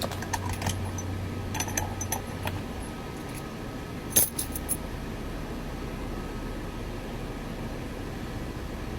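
Small metallic clicks and key jingles as a Kwikset SmartKey lock cylinder is worked with a reset tool and key, with a sharper cluster of clicks about four seconds in.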